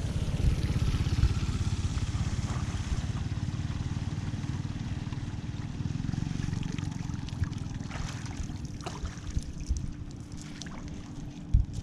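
Flood water trickling and gurgling as it drains into a culvert, over a low rumble of wind on the microphone, with a few light knocks near the end.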